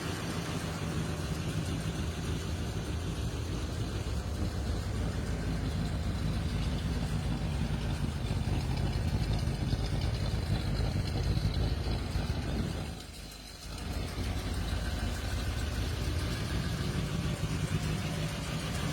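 A car engine idling steadily with a low rumble. It drops away briefly about thirteen seconds in, then returns.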